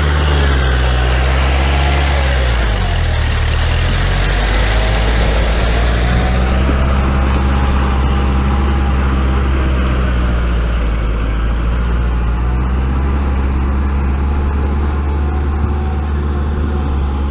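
Kubota tractor's diesel engine running steadily. Its note sags briefly about three seconds in, then picks up again.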